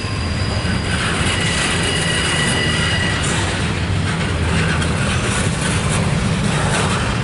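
Double-stack intermodal train of loaded container well cars rolling past close by: a steady rumble of wheels on rail, with a faint high wheel squeal in the first three seconds.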